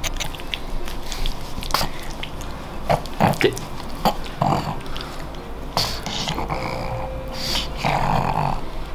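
Black pug's dog noises and mouthing as she play-bites at the hands holding her on her back, with a scatter of sharp clicks and short noisy bursts.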